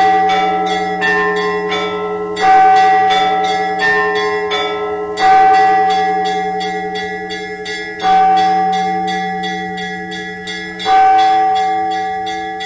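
Church bells ringing. A deep bell is struck about every three seconds, four times, each stroke ringing on in a long hum, while smaller bells chime quickly in between, about three strokes a second.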